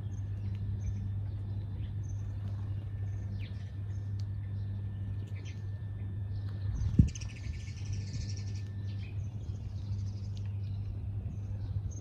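House sparrows chirping: short scattered chirps, then a burst of dense chattering from about six and a half to nine seconds in, over a steady low hum. A single soft thump about seven seconds in.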